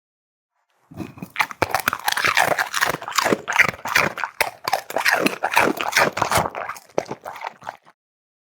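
An animal chewing and crunching, a rapid, uneven run of crunches lasting about seven seconds that starts and stops abruptly.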